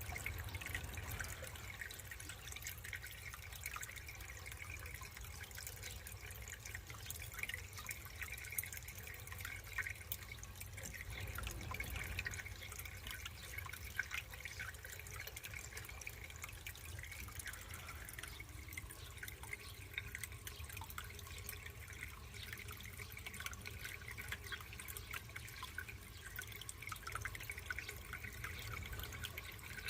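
Aquarium water circulating: a steady trickle with many small drips and splashes, over a low steady hum.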